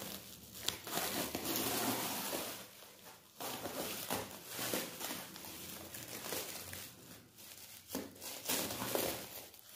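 Clear plastic stretch wrap crinkling and rustling as it is cut and pulled off a wrapped tyre, in several bursts with short pauses between them.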